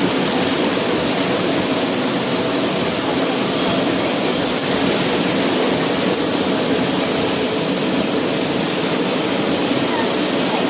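Heavy rain pouring down in a loud, steady, even hiss.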